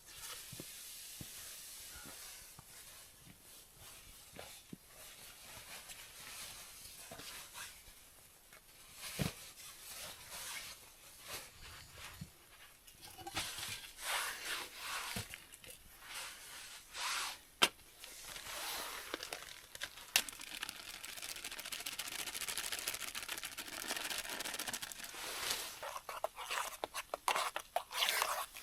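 Rustling and crinkling as gear or packaging is handled, with scattered clicks and knocks, thickening in the second half.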